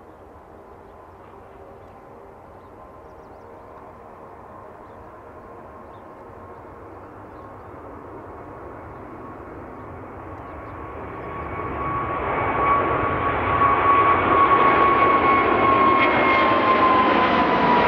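Boeing 777F freighter's two GE90 turbofans at takeoff thrust as it rolls down the runway and lifts off, growing louder and swelling sharply about two-thirds of the way through. A steady high whine runs over the jet noise and dips slightly in pitch near the end.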